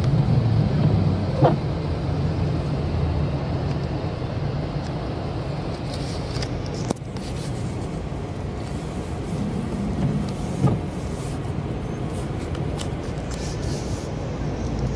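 Road traffic noise: vehicles running and passing, with a short knock about a second and a half in and another about ten and a half seconds in.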